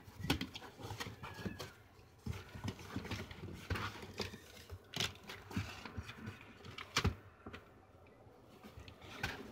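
Corrugated cardboard box being handled, its flaps opened and folded back, giving irregular knocks, scrapes and rustles of cardboard; the sharpest knock comes about seven seconds in.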